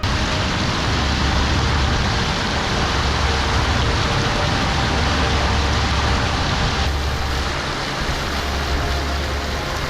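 Steady rushing of wind and water over a low rumble, heard from the bow of a motor yacht cruising under diesel power.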